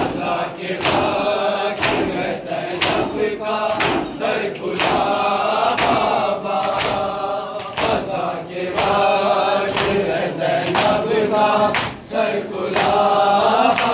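Men chanting an Urdu noha together behind a lead reciter, with sharp chest-beating strikes (matam) about once a second keeping the rhythm. The chant breaks off briefly near the end and resumes.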